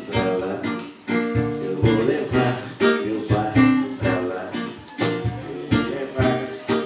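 Acoustic guitar strummed in a steady rhythm, playing an instrumental passage between sung lines of a song.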